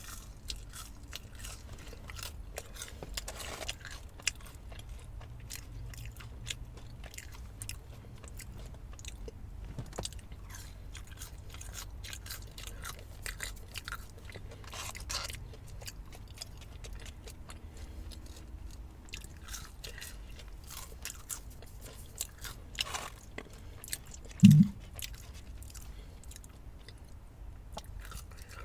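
Close-up chewing and crunching of crunchy fried fast food, with many small crackles and mouth clicks. Near the end comes one short, loud, low-pitched burp.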